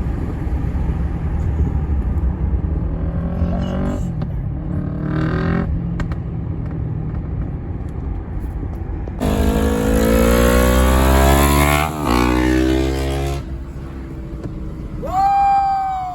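Motorcycles riding with a steady low rumble of engine and wind. About nine seconds in, a motorcycle engine accelerates hard, its pitch rising, with a brief break near the twelve-second mark like a gear change. Near the end a shorter rev rises, holds and drops.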